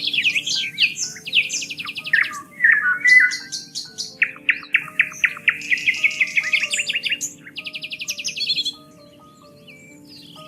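Several songbirds singing with varied chirps and fast, even trills, over soft sustained background music notes. The birdsong drops away about nine seconds in and starts again at the very end.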